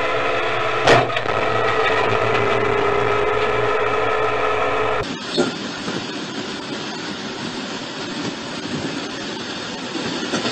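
A train horn held on one steady chord, with a sharp knock about a second in. About five seconds in it cuts off abruptly to the steady rushing rumble of a locomotive running along the track.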